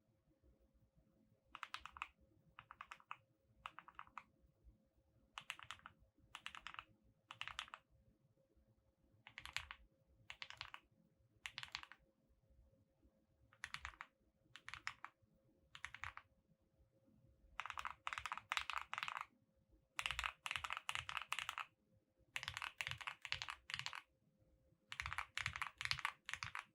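Typing on a QK65 mechanical keyboard with lubed Gateron Oil King linear switches on an aluminium plate, with PE and plate foam and GMK-clone keycaps. It is typed in short bursts of keystrokes about a second long with pauses between them, and the bursts grow longer and denser in the last third.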